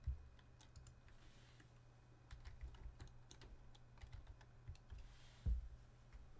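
Faint, scattered keystrokes on a computer keyboard, with a louder single click or knock about five and a half seconds in.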